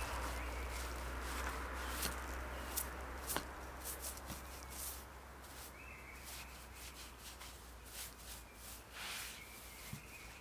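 Quiet handling sounds after the chainsaw stops: scattered light clicks, rubbing and footsteps around the log, over a low steady rumble.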